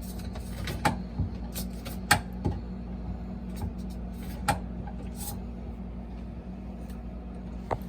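A handful of sharp knocks and clicks of plastic fridge parts being handled while the freezer drain tube is worked on, the loudest about two seconds in, over a steady low hum.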